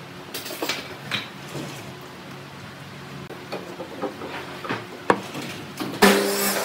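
Clicks and scrapes of steel locking pliers and a threaded screw being handled against a pine ring segment. A sharp click about five seconds in, then a louder, noisier sound with a steady hum for about half a second near the end.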